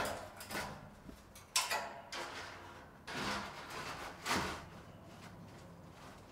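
A sheet of corrugated iron scraping and rattling as it is stood up and shifted against a timber frame, in about five short rasps that die down after about five seconds.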